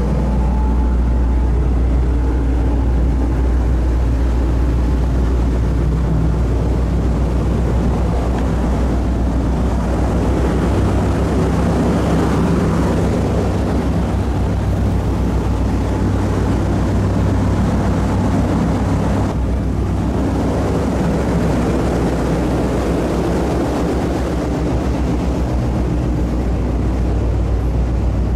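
Steady low drone of a large car ferry's engines and deck machinery, heard on the open deck.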